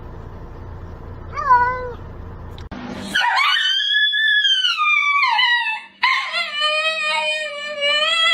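A pet's short whining call, then two long drawn-out calls: the first high, rising and then falling; the second lower and held steady.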